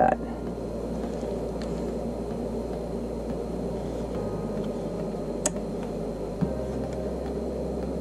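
Steady low background hum and hiss, with one sharp click about five and a half seconds in.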